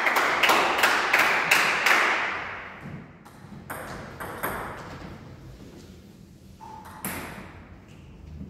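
Table tennis ball bouncing, a string of sharp clicks about three a second that fade over the first few seconds, then a few scattered taps and one sharper click near the end.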